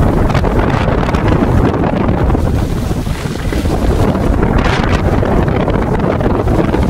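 Wind rushing over the microphone of a camera carried by a moving skier, mixed with skis hissing over snow; a brief louder scrape of skis about five seconds in.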